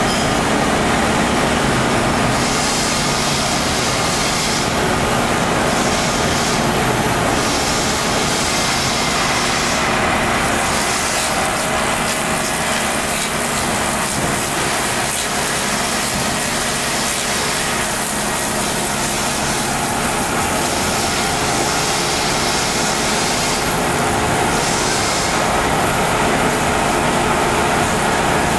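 Taiga OS-1 log-rounding machine running: its electric motors and milling cutter head give a steady, loud mechanical whir, with a higher hiss that swells and fades every few seconds.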